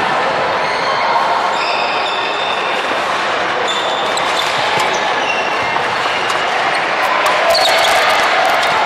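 Badminton rally in a reverberant sports hall: short high squeaks of shoes on the wooden court and sharp racket hits on the shuttlecock, with more hits near the end, over a steady background din of the hall.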